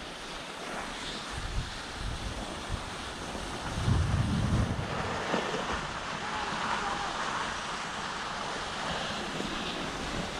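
Skis sliding over groomed snow while moving downhill, with wind buffeting the microphone; a stronger low rumble of wind on the microphone comes about four seconds in.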